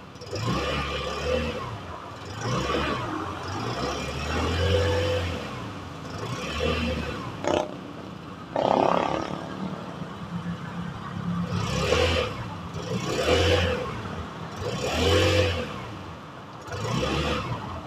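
SYM Tuscany 150 scooter's engine revved in repeated throttle blips, each swelling up and dropping back toward idle, about nine times.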